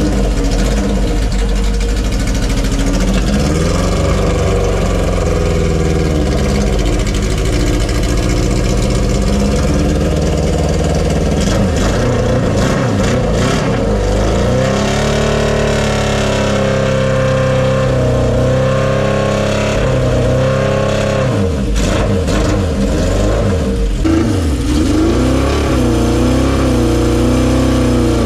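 Honda CB750 Four Super Sport's four-cylinder engine running while its throttle is blipped, so the revs rise and fall again and again.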